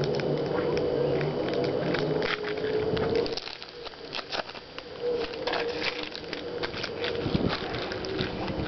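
Foil wrapper of a Pokémon booster pack crinkling and tearing as it is opened by hand: a dense run of irregular crackles. A steady hum sits underneath for the first three seconds or so.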